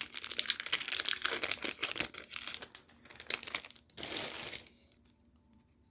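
Plastic foil wrapper of a Magic: The Gathering booster pack crinkling as it is torn open and handled, a dense crackle that stops abruptly about five seconds in.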